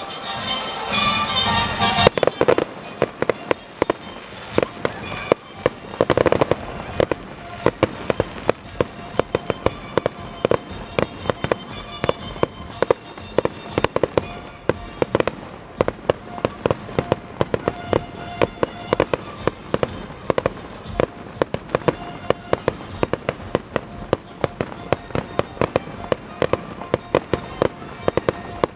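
Fireworks display: a continuous, irregular volley of sharp bangs and crackles, several a second.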